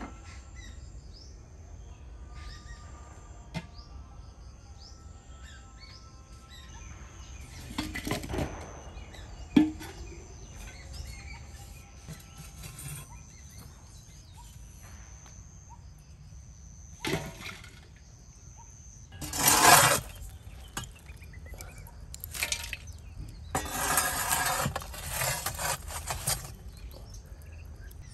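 Birds chirping in the background, broken by several short bursts of noise from handling, scraping or rustling; the longest and loudest comes near the end.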